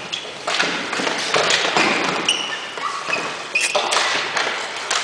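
Ball hockey play on a gym floor: a string of sharp knocks from sticks and ball striking the floor and each other, with several short high squeaks and players' voices mixed in.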